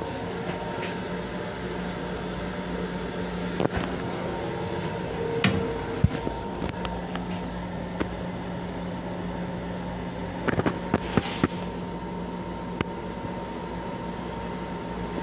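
Steady hum of an M7 railcar inside its small restroom, a constant drone with a few steady tones. Scattered sharp knocks and rattles cut through it, with a quick cluster about ten to eleven seconds in.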